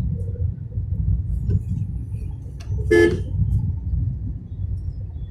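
Low, steady road and engine rumble inside a Tata Tiago's cabin while driving, with one short car-horn toot about three seconds in.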